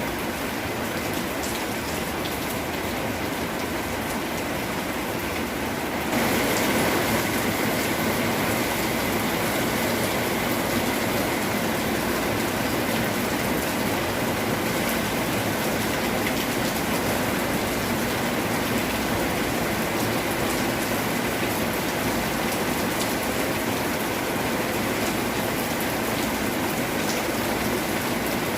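Steady rain falling, a continuous hiss and patter; about six seconds in it steps up louder and fuller and then holds steady.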